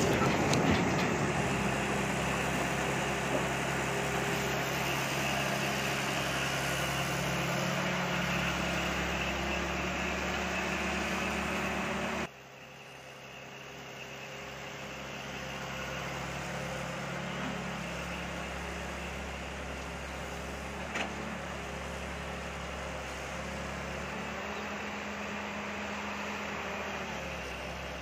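Heavy truck diesel engine idling steadily. About twelve seconds in, the sound drops abruptly to a quieter, steady diesel engine hum from the excavator and trucks at work, with one small knock a little after twenty seconds.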